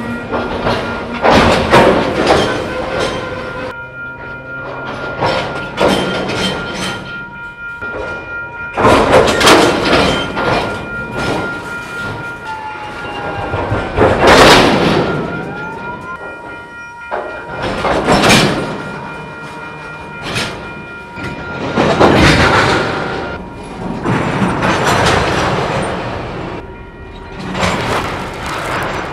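Freight-car couplers slamming together as slack runs in and out along a moving train: a series of loud bangs and clanks every few seconds, with wheels rumbling over the rails between them. A steady ringing tone sits underneath, from the level crossing's warning bell.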